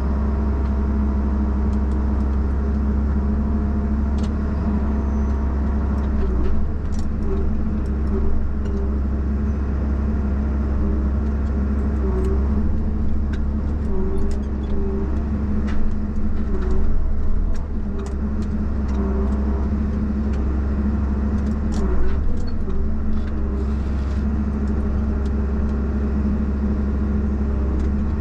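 Valmet 860 forwarder's diesel engine running steadily, heard from inside the cab, while the crane is worked to load heavy logs. Short whines come and go through the middle stretch as the crane moves, with a few faint knocks.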